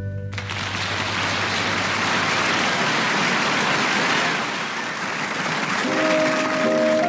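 The band's closing chord stops and an audience applauds. About six seconds in, keyboard notes begin, opening the next song.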